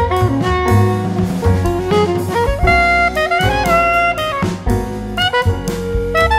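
Instrumental background music: a lead melody moving in short stepwise notes over a bass line and drums.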